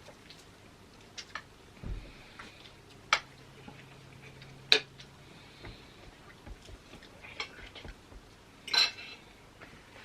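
Cutlery clinking and scraping against plates during a meal, as scattered sharp clicks. The two sharpest come about three seconds and nearly five seconds in, with a short rattling clatter near the end.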